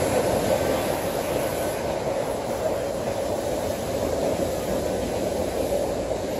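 Steady rumble of a Falcon Heavy rocket's engines heard from far off during its climb.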